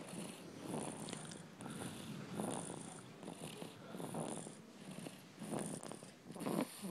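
Two-month-old baby snoring, a short snore on each quick breath, a little faster than one breath a second.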